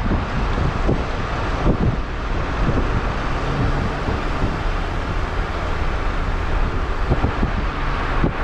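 Wind buffeting the microphone of a moving camera: a steady, loud rush, heaviest in the low end, with uneven gusty thumps, over road noise.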